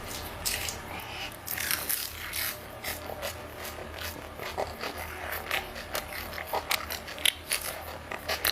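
Close-up eating sounds: chewing with many quick irregular clicks and smacks of the mouth, over a faint low hum.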